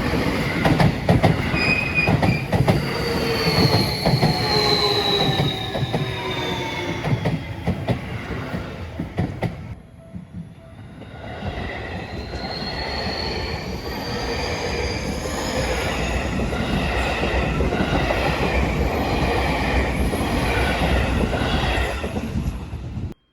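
Seibu Shinjuku Line electric trains passing a level crossing: wheels clattering on the rails and a high motor whine that falls in pitch. About ten seconds in it drops to a brief lull, then a second train builds up with its whine rising in pitch, until the sound cuts off suddenly near the end.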